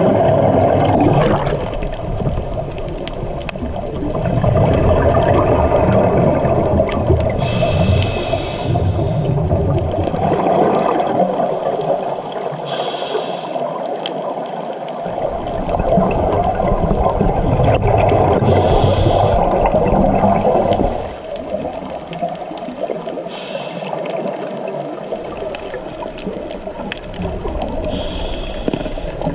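Scuba breathing through a regulator underwater: a short hiss of inhalation about every five seconds, then a longer stretch of exhaled bubbles streaming up from the regulator.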